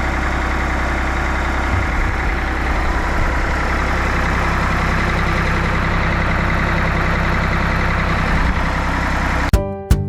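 Tractor engine running steadily at idle. An acoustic guitar strum cuts in near the end.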